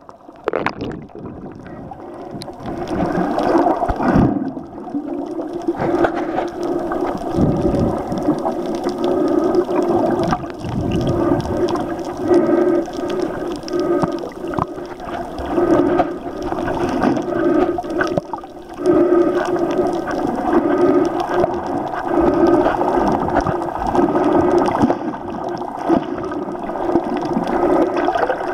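Muffled underwater sound picked up by a submerged camera: sloshing, gurgling water over a steady low hum that swells and fades every second or two, growing louder about two seconds in.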